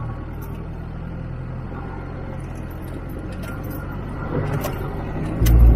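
Engine of a 4WD idling along slowly in low range over a rough dirt track, heard from the vehicle, with a steady low hum, scattered rattles and knocks from the body and load, and a heavy low thud near the end as it rolls over a bump.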